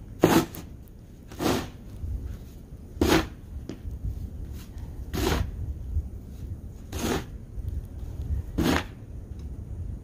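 Snow shovel scraping and scooping packed snow in a steady working rhythm, six strokes about every one and a half to two seconds.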